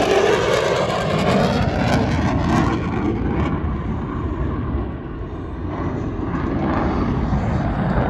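Fixed-wing aircraft flying a display, its engine noise a steady loud rush that dips about five seconds in and then builds again.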